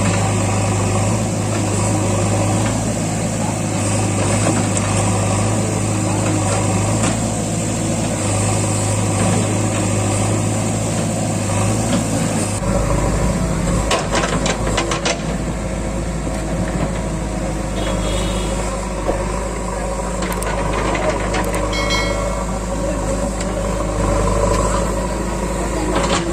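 JCB 3DX backhoe loader's diesel engine running steadily, its note dropping lower about halfway through. A quick run of sharp knocks follows shortly after the drop.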